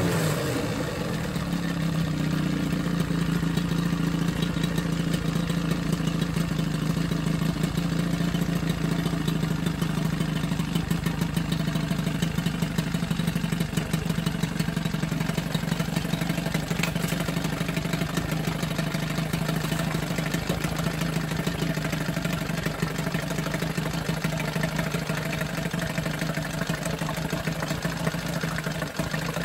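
Johnson 9.9 hp two-stroke twin-cylinder outboard idling steadily in a test tub, its carburetor freshly rebuilt; a pretty quiet-running idle.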